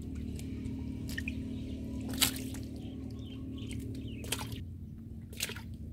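Fish splashing in a shallow muddy pool: four short wet splashes, the loudest about two seconds in, over a steady low hum.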